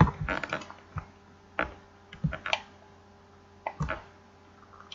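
Computer mouse clicks and keyboard key presses, short sharp clicks coming in irregular little clusters with pauses between.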